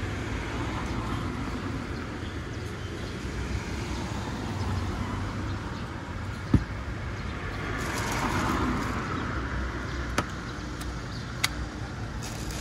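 Steady street traffic noise that swells briefly past the middle, with a few sharp clicks of plastic bottles and a plastic jug being handled. The loudest click is about six and a half seconds in.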